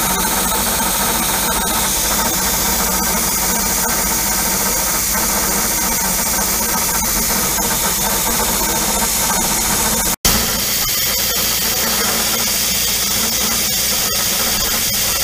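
A half-inch four-flute cobalt roughing end mill slotting metal on a milling machine, running steadily at about 30 thou depth of cut over the hiss of spray mist coolant. The sound cuts out for an instant about ten seconds in.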